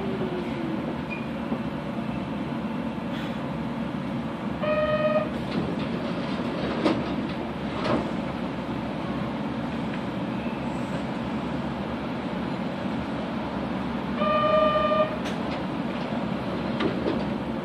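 Kobe City Subway 3000 series train running, heard from on board: a steady rumble of wheels on rail, with a falling whine fading out just after the start. A short horn toot sounds twice, about ten seconds apart, with a couple of sharp knocks between them.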